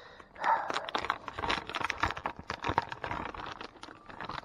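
Fishing tackle and plastic packaging being handled: a dense run of small clicks, rattles and crinkles while a soft-plastic paddle-tail trailer is taken out and fitted to a chatterbait.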